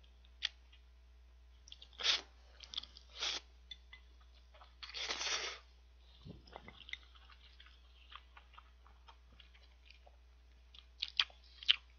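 A person slurping and chewing thick instant ramyeon noodles: short slurps about two and three seconds in and a longer one around five seconds, between quiet wet mouth clicks of chewing.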